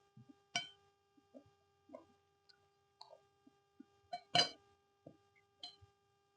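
Quiet eating sounds from someone eating a plate of fried noodles: soft chewing and mouth sounds with scattered small clicks and taps. Two sharper clicks stand out, a little over half a second in and about four and a half seconds in.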